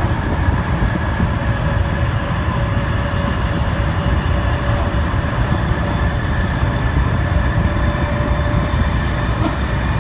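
Inside a Metro-Cammell electric multiple unit on the MTR East Rail Line, running at steady speed: a loud, even rumble of wheels on rails, with several steady whining tones from the train above it.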